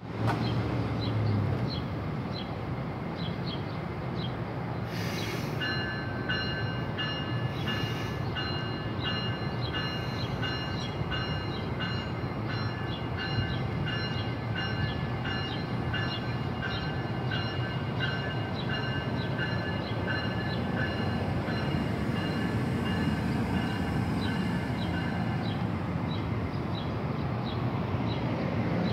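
NJ Transit bi-level commuter train, pushed by an ALP-46 electric locomotive, pulling out of the station: a steady rumble as the coaches roll slowly past. About five seconds in there is a short hiss, and from then until near the end a high, rapidly pulsing ringing rides over the rumble.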